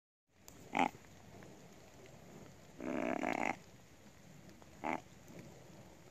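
Deer grunt tube call blown three times: a short grunt, a longer grunt of under a second, then another short grunt, imitating a buck.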